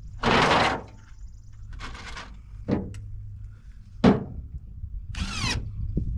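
Wood being worked and handled: a half-second scrape or rush at the start, then a knock, a sharper, louder knock about four seconds in, and a short grating scrape near the end.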